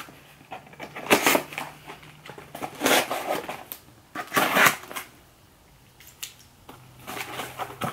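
Paper being torn and crinkled as a wrapped gift is opened by hand, in about four short rustling rips with quieter handling between.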